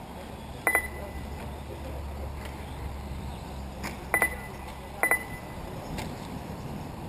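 Sharp metallic clinks: one about a second in, then two doubled clinks a few seconds later, each leaving a brief high ringing. Underneath is a steady low hum.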